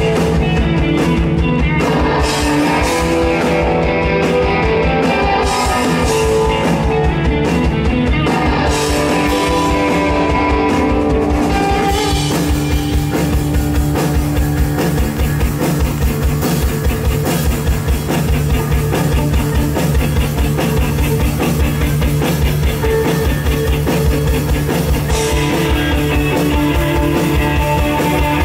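Live rock band playing 1960s–70s-style fuzz psychedelic rock: distorted electric guitars over a drum kit. About twelve seconds in the sound thickens and stays dense to the end.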